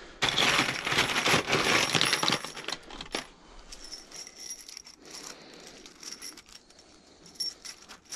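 A handful of steel nails rattling and clinking as they are scooped out of a plastic tub. The clatter is dense and loud for about the first three seconds, then gives way to quieter, scattered clinks as the nails are shuffled in the hands.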